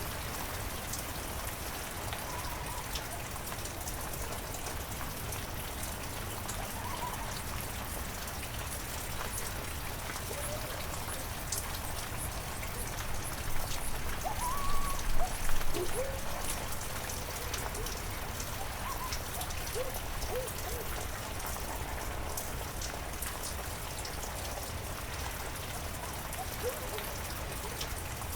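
Heavy rain falling steadily, with a few short rising and falling pitched calls scattered through it, loudest about halfway.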